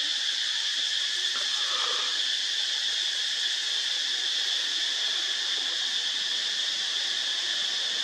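Steady, high-pitched drone of an insect chorus, unbroken throughout, with a faint brief lower call about two seconds in.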